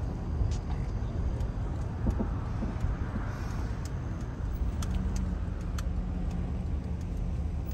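Car driving slowly, heard from inside the cabin: a steady low rumble of engine and road noise, with a few light clicks and a faint low hum coming in about five seconds in.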